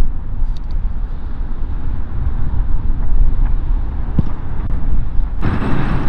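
Strong wind buffeting the microphone: a heavy, steady low rumble, with a couple of faint knocks. Near the end the noise turns brighter and harsher.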